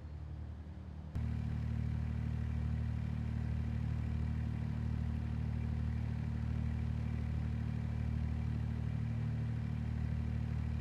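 Engine of heavy work-site machinery running steadily, a low, even hum with no revving; it gets abruptly louder about a second in.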